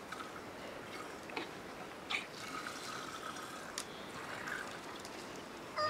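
Buffalo being milked by hand: faint, irregular squirts of milk into a small vessel, with a few soft clicks.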